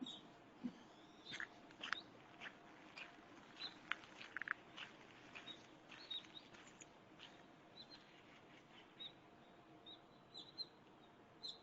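Small birds chirping faintly, in short scattered chirps, with a few brief clicks among them.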